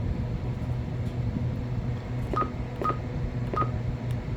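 Three short, single-pitch key beeps from a TYT TH-9000D Pro mobile radio as its front-panel buttons are pressed, each starting with a faint click, over a steady low hum.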